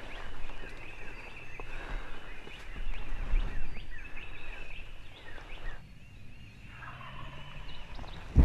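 Wild turkey gobbler gobbling in the woods.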